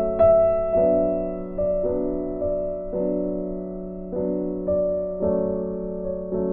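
Background music: soft piano chords struck every half second or so, each one ringing on and fading.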